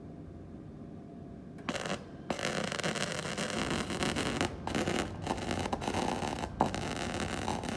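Gasless flux-core MIG welder striking an arc about two seconds in, after a low machine hum, then crackling steadily with a few brief breaks where the arc stops and restarts.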